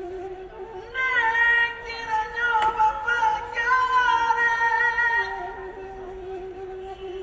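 Indonesian gamelan music: a high voice sings long held notes that bend and waver in pitch, over a steady lower held tone. The singing grows louder about a second in and softens again after about five seconds.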